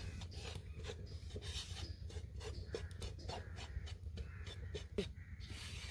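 Gram flour (besan) being stirred and scraped around a pan as it roasts in a little oil on a low flame: an irregular run of short scrapes.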